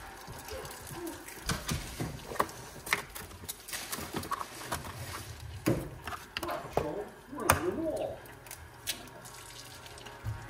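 Eggs frying in a pan while a second egg is cracked in: scattered clicks and knocks of eggshell and utensils against the frying pan, the loudest knock about seven and a half seconds in, with a faint voice in the background.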